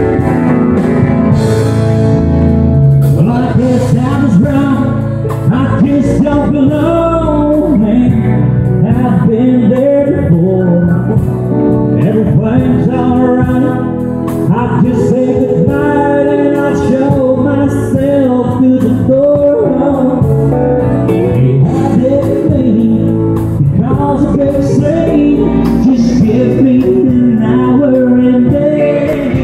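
Live country band playing, with a man singing lead over acoustic guitar, electric guitar and drums.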